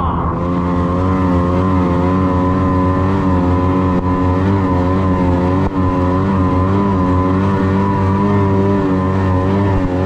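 Snowmobile engine running at a fairly steady speed while the sled rides along, heard from on board, its pitch wavering slightly up and down.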